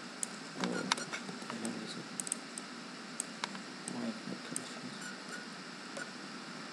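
Computer mouse clicking: a dozen or so short, sharp clicks at irregular intervals over a steady hiss from the recording microphone.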